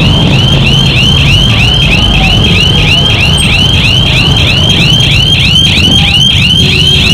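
Electronic warning beeper, likely the e-bike's own, sounding a short rising chirp over and over, about five times a second, over a low rumble of street traffic.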